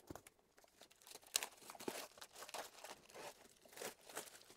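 Clear plastic shrink wrap being torn and pulled off a cardboard box, crinkling and crackling irregularly, loudest about a second and a half in.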